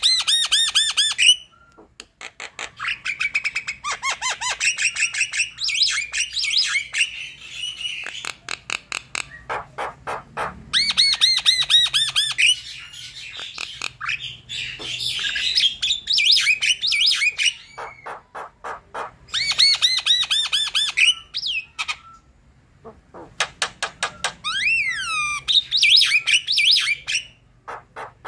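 Javan myna in full song: long runs of rapid, harsh chattering notes mixed with squawks, broken by short pauses. Near the end there are a few gliding whistles.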